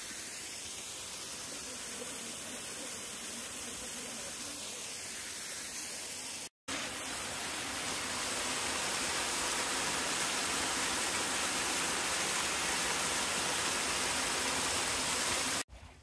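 Steady rush of water from a small waterfall and the stream running over stones, with a brief dropout about six and a half seconds in, after which the rushing is louder.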